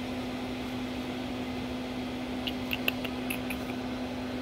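Steady machine hum holding one constant low tone, with a few faint, light clicks a little past the middle as the circuit board is handled.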